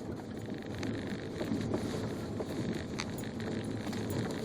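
Car driving slowly through deep snow, heard from inside the cabin: a steady low rumble of engine and tyres with a few faint clicks.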